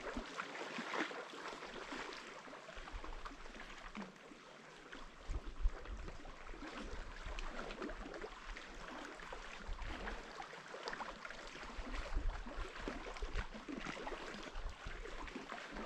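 Gentle water sounds: many small splashes and drips with soft lapping, no steady rhythm.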